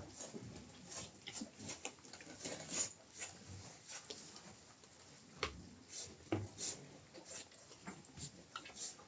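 A dog making soft sounds, among irregular clicks and rustles.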